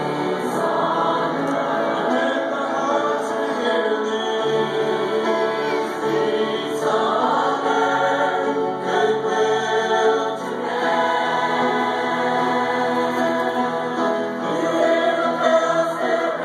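A mixed choir of men's and women's voices singing a Christmas carol in parts, holding long chords that change every second or two.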